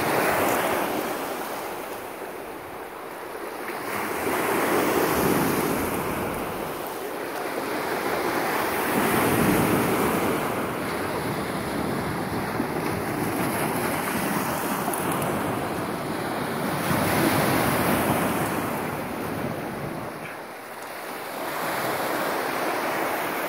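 Small lake waves breaking and washing up a sandy shore, swelling and fading every several seconds, with wind buffeting the microphone.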